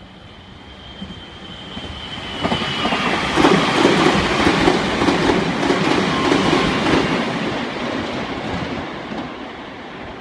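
Meitetsu 3500 series and 3100 series electric train passing at speed, its wheels clattering rhythmically over the rail joints. The sound builds over the first few seconds, is loudest in the middle and fades as the train moves away.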